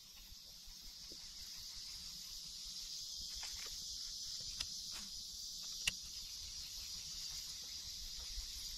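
Steady, high-pitched insect chorus droning from the marsh vegetation, with a few faint ticks, the clearest about six seconds in.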